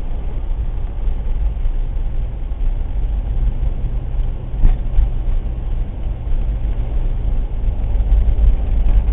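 Blizzard wind buffeting the microphone: a loud, steady low rumble that surges and eases, with a brief knock about halfway through.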